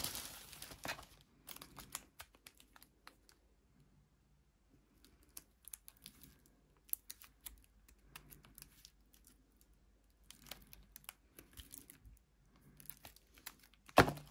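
Thin plastic packaging sleeve crinkling and rustling as a plastic phone case is slid out and handled, with scattered small clicks and taps. A single sharp knock near the end as the case is set down on the boxes.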